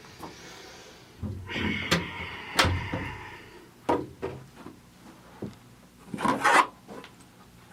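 Scraping and rubbing sounds with several sharp knocks, like wooden furniture or a drawer being handled: a longer scrape with clacks in it, a couple of single knocks, then a short rasping scrape near the end.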